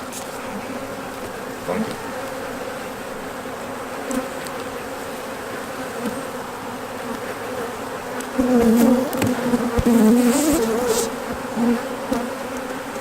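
Honeybees buzzing around an open hive: a steady hum, with a louder, wavering buzz from about eight to eleven seconds in.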